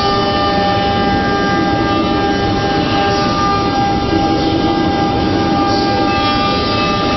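CNC router for door and window panels running, a steady whine of several held tones over a continuous mechanical rumble.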